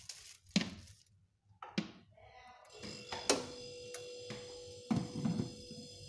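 A few knocks and thunks, then about three seconds in a steady hum with a high whine starts as the LG two-door refrigerator switches on and begins running on its replaced power cable.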